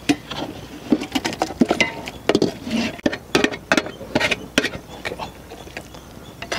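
Metal spoon knocking and scraping against a metal cooking pot while chicken curry is scooped from it: a quick, irregular run of clinks and scrapes.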